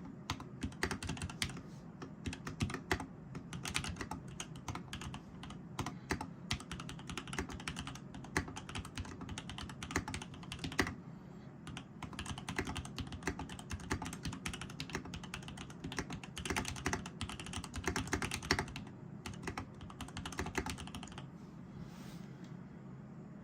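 Typing on a TX EO-87 custom mechanical keyboard with lubed and filmed Tangerine linear switches on an FR4 plate: a fast, steady stream of keystrokes with a few louder strokes. The typing stops about two seconds before the end.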